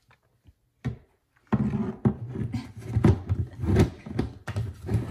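Screw-on plastic lid being twisted shut on a large plastic pet-food container: a single click, then a run of irregular plastic scraping and knocking strokes starting about a second and a half in.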